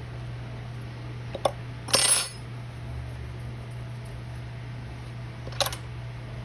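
Small metal tools clinking on a hard work surface: a couple of short knocks, a louder rattle about two seconds in, and another knock near the end, over a steady low hum.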